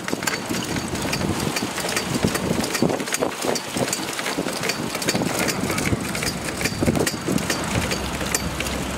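Yacht's mast halyard winch being cranked by hand with a winch handle to hoist the sail, its pawls clicking over and over as the drum turns.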